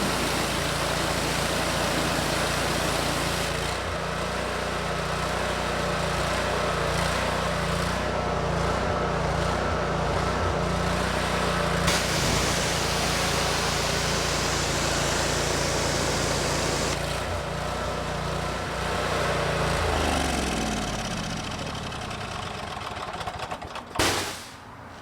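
Pressure washer engine and pump running steadily under load with a hiss of spray, while its new unloader is being set. About twenty seconds in it is shut off and the engine note falls as it spins down. A sharp knock comes near the end.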